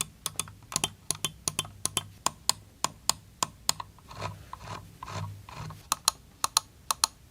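Akko V9 Ultra gaming mouse's optical switch buttons clicked over and over in a sound test: sharp clicks a few times a second, often in press-and-release pairs. Two short, soft rubbing sounds come about four and five seconds in.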